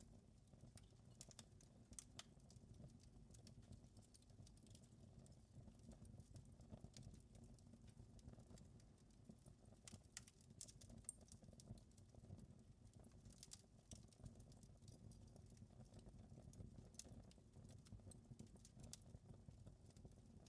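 Faint wood fire crackling, with irregular small pops and snaps over a steady low rumble.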